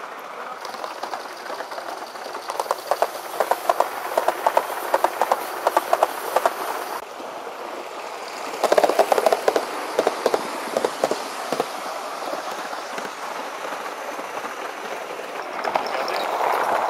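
Large-scale model trains rolling past on the track, with a rhythmic clicking of wheels over rail joints, about three clicks a second, in two runs; the second, louder run starts as a steam locomotive draws near. Another train approaches near the end, and the rolling noise swells.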